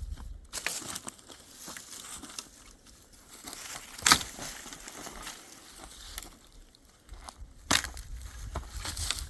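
Dry twigs and wood crackling and snapping, with three sharp cracks: just after the start, about four seconds in (the loudest), and near the end.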